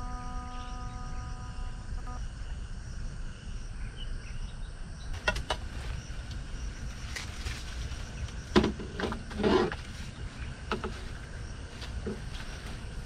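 Scattered knocks and rustles from handling a long fishing pole as it is lifted and played, the loudest about eight and a half seconds in, over a steady low wind rumble on the microphone. Background music fades out about two seconds in.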